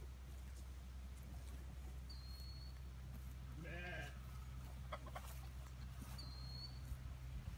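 One short bleating call from a young farm animal about three and a half seconds in, rising and then falling in pitch. Two brief thin high whistles come before and after it, over a steady low rumble.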